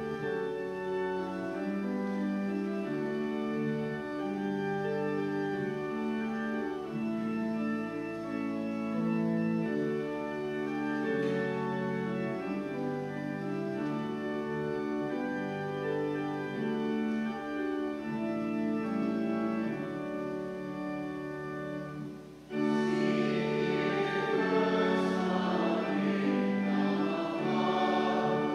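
Church organ playing the introduction of a hymn in sustained chords. About 22 seconds in it breaks briefly and comes back louder as the congregation starts singing the hymn with the organ.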